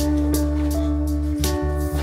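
Background music: sustained notes over a light, steady beat.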